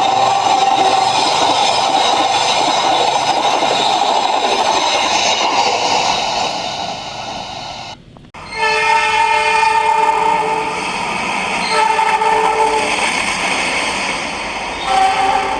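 Multi-tone air horn of a CC 206 diesel-electric locomotive (GE C20EMP) sounding a held chord over the rumble and clatter of the moving train. After a brief break about eight seconds in, the horn sounds again in separate blasts: a long one, then shorter ones.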